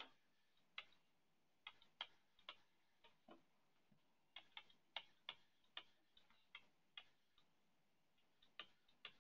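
Stylus tapping on a tablet's screen while handwriting: faint, short, irregular clicks, a couple per second.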